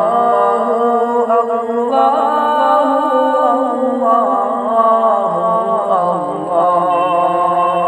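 A cappella Islamic nasheed: voices chanting in long, wavering held notes over a steady low hum, with no clear words.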